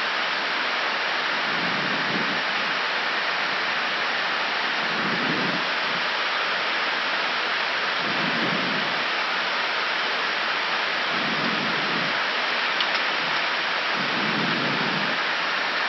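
Steady rushing flight-deck noise of an Airbus A319 in flight: air streaming past the airframe and the ventilation hiss, with a faint low swell about every three seconds.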